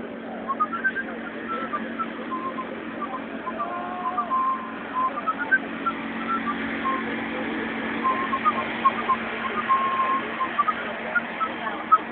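Outdoor ambience: a steady low hum under many scattered short, high chirps.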